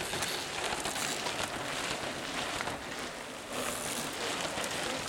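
A group of mountain bikes riding past on a dirt forest trail, their knobby tyres crunching and crackling over dirt and dry leaves.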